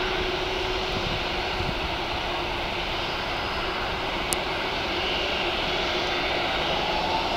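Boeing 757-300 airliner's twin Pratt & Whitney PW2000 turbofans at takeoff thrust as it lifts off and climbs away: a steady rushing jet noise with a faint low hum.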